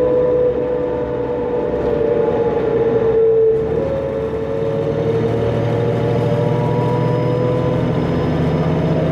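Cummins ISL diesel of a 2005 New Flyer D40LF transit bus running under way, with a steady turbo whine over the engine note. About three seconds in the whine dips a little in pitch, and from about five seconds the deeper engine note grows stronger.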